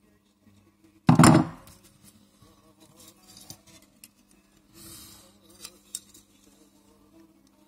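Small plastic and metal parts being handled on a table. There is a sharp knock about a second in, then light clicks and a brief rustle, over a faint steady hum.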